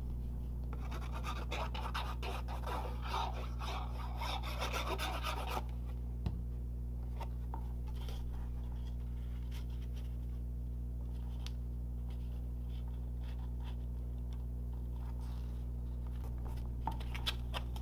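Nozzle of a squeeze bottle of liquid glue rubbing and scratching across cardstock as glue is spread, for about five seconds. Then come faint taps and paper handling as the glued cardstock piece is pressed into place. A steady low hum runs underneath throughout.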